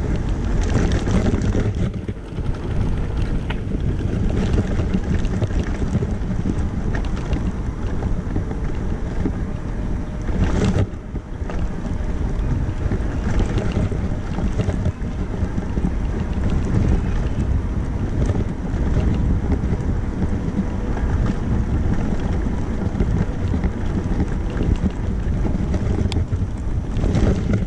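Steady wind buffeting the microphone on a moving electric wheelchair-bike attachment, heard as a dense low rumble, with one sharp knock about eleven seconds in.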